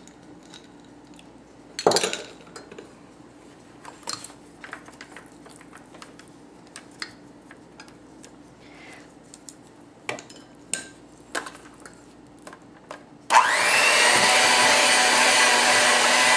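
Scattered clinks and scrapes of a spoon and chopsticks against glass and stainless steel bowls. About thirteen seconds in, a Black & Decker PowerPro electric hand mixer switches on and runs with a steady whine, beating chilled minced chicken breast into a sticky paste for chicken balls.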